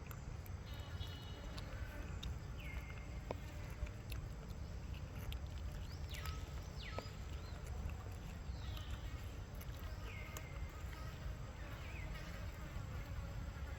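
Steady low rumble, with about six short, high animal calls scattered through, each sliding down in pitch, and a few faint clicks.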